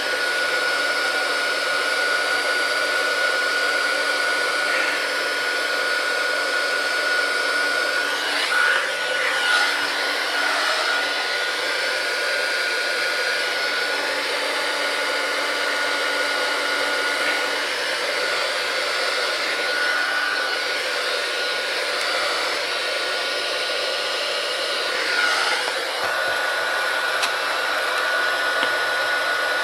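Hot-air blower running steadily: a rushing of air under a constant high-pitched motor whine, wavering briefly twice as it is moved. It is warming a tablet's glass to soften the adhesive so the screen can be pried off.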